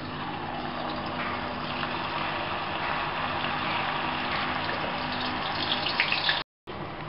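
Batter-coated chickpeas deep-frying in hot oil: a steady sizzle and bubbling, with a few sharper crackles near the end before the sound briefly cuts out.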